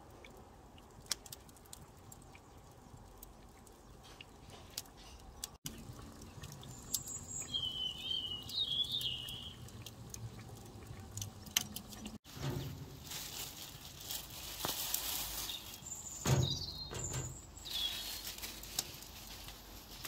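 Onions frying in oil in a pot over a charcoal fire, a faint sizzle with scattered pops and crackles. Birds chirp briefly twice in the background. In the last third a louder stretch of noise carries a dull thump about sixteen seconds in.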